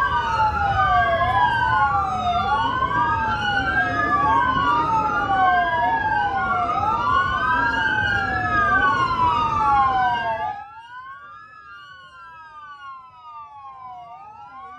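Several police sirens wailing out of step, each rising and falling slowly, over a dense low rumble of noise. About ten seconds in the whole sound drops off sharply, and the sirens carry on fainter.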